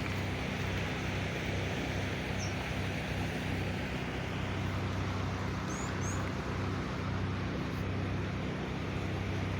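Steady rushing outdoor background noise, with a few brief high bird chirps, one about two seconds in and a pair about six seconds in.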